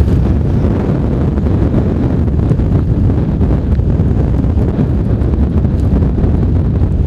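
Strong wind buffeting the microphone, a loud, steady low rumble.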